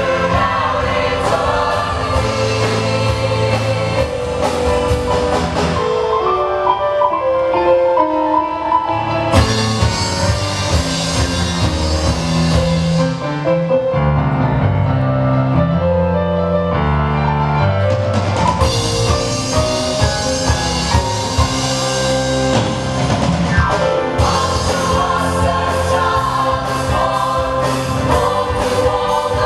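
Mixed choir singing a Christmas gospel song, backed by piano, acoustic and electric guitars, bass and drum kit. Twice the bright top of the sound drops away for a few seconds, then returns.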